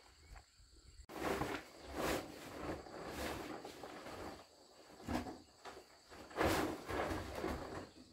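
Plastic tarpaulin rustling and crackling on a corrugated roof in irregular bursts.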